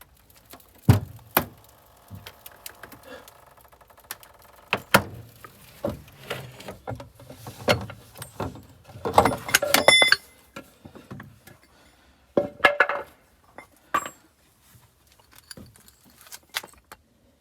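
Metal parts and tools clanking and knocking, with one loud ringing metallic clang about ten seconds in.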